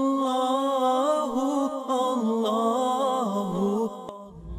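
One voice singing a chant-like melody that slides and wavers up and down in long phrases; it breaks off about four seconds in, leaving the low rumble of the train.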